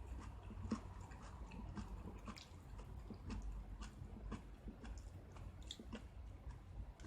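A person chewing close to the microphone, eating soy-sauce ramen with crisp vegetables: many small, irregular crunching clicks, over a low steady hum.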